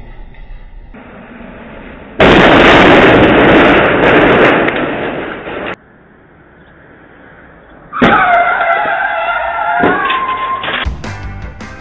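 A loud rushing noise for about three and a half seconds that cuts off suddenly, then after a lull car tyres squealing in a skid, a wavering high squeal lasting about three seconds before the crash.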